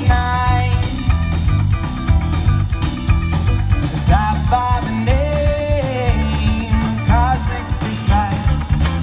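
Live band playing amplified music: electric guitars, electric bass and drum kit, with a singer's voice over it in the middle.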